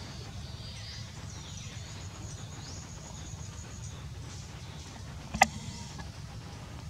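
Baby macaque's thin, high-pitched crying calls, faint over a steady low rumble, with one short, sharp, loud squeak about five seconds in.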